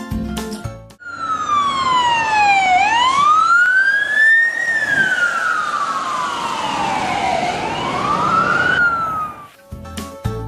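Police car siren wailing in slow rising and falling sweeps, starting about a second in and cutting off shortly before the end. Children's music plays briefly before and after it.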